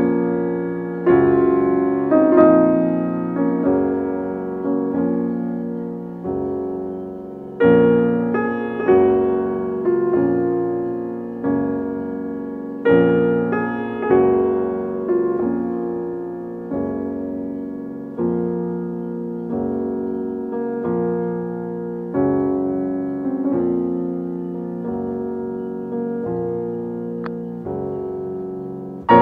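Slow piano music: notes and chords struck about every second or two, each ringing on and fading before the next.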